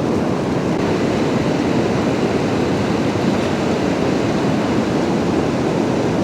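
Steady rushing of flowing river water, an even roar with no breaks.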